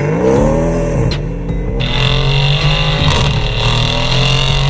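Mercedes-AMG E63 S twin-turbo V8 exhaust: a rev that rises and falls in the first second, then, from about two seconds in, a steady drone under acceleration with the pitch climbing slowly.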